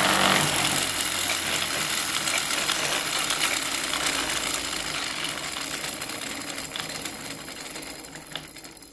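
Wooden gear train with a small plywood fan governor, driven by an unwinding clock mainspring: a fast, dense whirring clatter of gear teeth and spinning fan. It fades steadily as the spring runs down, with the fan's air resistance slowing the unwind.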